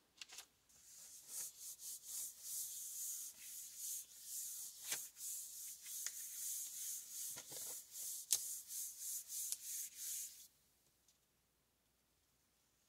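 Hands rubbing the back of a sheet of laser-printed paper laid on an inked gelli plate: a steady high, papery hiss with a few light taps, burnishing the print into the paint for an image transfer. The rubbing stops about ten seconds in.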